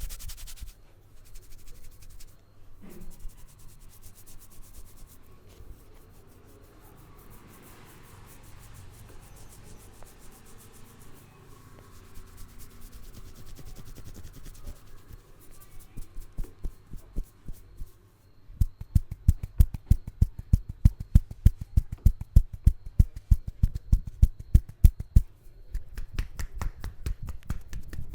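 Hands rubbing over hair and scalp during an Indian head massage, then fast, even hand patting on the head at about four to five strikes a second, loud for several seconds before easing to lighter tapping near the end.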